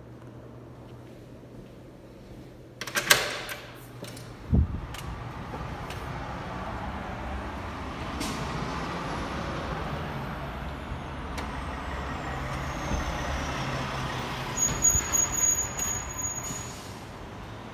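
A door clatters open and thumps a second later, then steady outdoor traffic noise from the street and parking lot below. A brief high squeal comes near the end.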